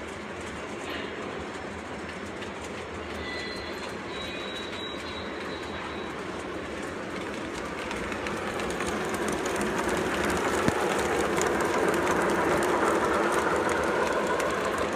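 Lionel O-gauge model trains running on three-rail track: a steady whirr of motors and rumble of wheels that grows louder about eight seconds in as a locomotive and tank car pass close by, with one sharp click partway through.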